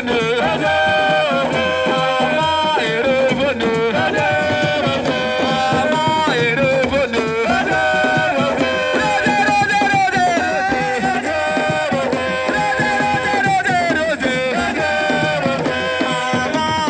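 Music: a melody of held, wavering notes over fast, busy drumming.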